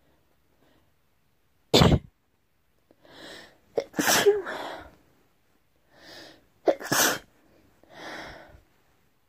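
A person sneezing three times, about two to three seconds apart, with softer breathy sounds between the sneezes.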